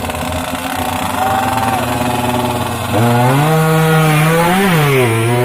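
Yamaha F1ZR two-stroke motorcycle engines running with a buzzing note, held at steady revs, then revved higher and louder about three seconds in, with a quick blip up and back down near the end.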